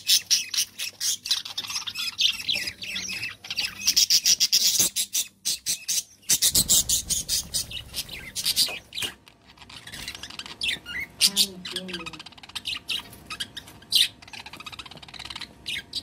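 Budgerigar chicks squawking: a fast, harsh chatter of rasping high calls that thins out in the second half.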